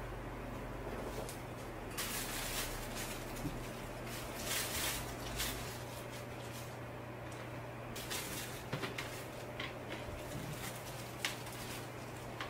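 Clear plastic wrapping rustling and crinkling as a small desk fan is unwrapped by hand, followed by a few light knocks as the fan is set down on a tabletop. A steady low hum runs underneath.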